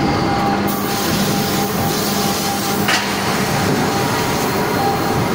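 Forging-line machinery running: a steady loud din with a held hum, with one sharp metal knock about three seconds in.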